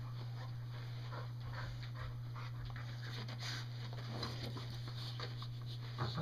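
Two golden retrievers tussling over a tennis ball on a carpet: soft breathing and snuffling from the dogs, with scattered faint rustles of fur and paws, and a louder burst near the end.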